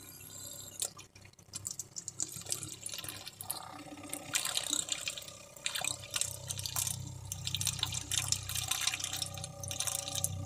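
Pink RV plumbing antifreeze pouring from a plastic bottle into the inlet of a camper's battery-powered water pump. The pump's low, steady hum comes in about halfway through as it draws the antifreeze into the water lines to winterize them.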